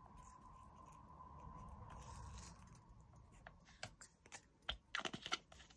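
Faint quiet stretch, then small sharp clicks and taps of clear plastic drill storage jars and their lids being handled, several close together in the last two seconds.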